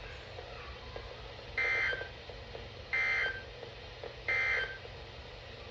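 Emergency Alert System end-of-message data tones: three identical short buzzy bursts of SAME digital code, about 1.3 seconds apart, signalling the end of the warning message.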